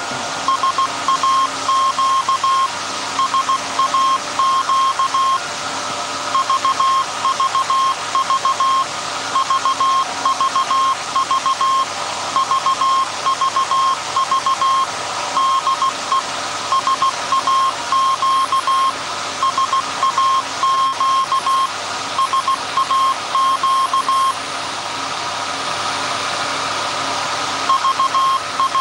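Morse code from the SAQ Alexanderson alternator's 17.2 kHz longwave transmission, heard through a web-based software-defined radio receiver in CW mode: a tone near 1 kHz keyed on and off in dots and dashes over a haze of radio static, with a few longer pauses between groups.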